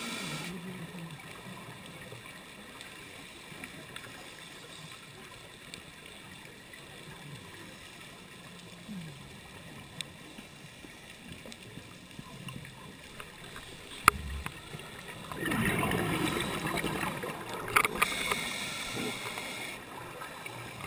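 Muffled underwater ambience heard through a GoPro housing, with a few sharp clicks. About three-quarters through, a scuba diver's exhaled bubbles burble loudly out of the regulator for several seconds.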